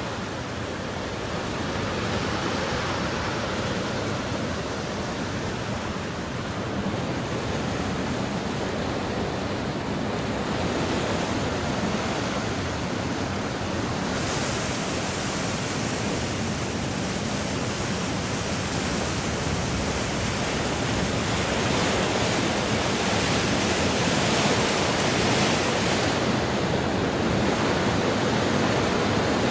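Floodwater of the Lampasas River at major flood stage rushing against a bridge, a steady, dense rushing noise that grows a little louder in the second half as the river keeps rising.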